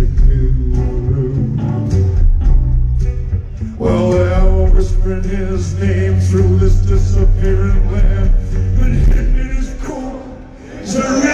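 Live band playing with a man singing into a microphone, the deep bass heavy. The music dips briefly about ten seconds in.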